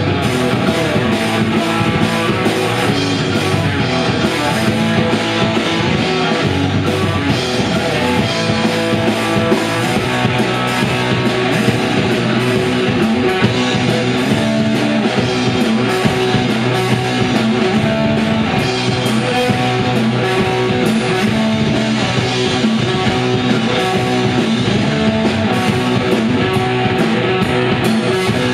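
Live rock band playing loudly: electric guitar and bass guitar over a drum kit.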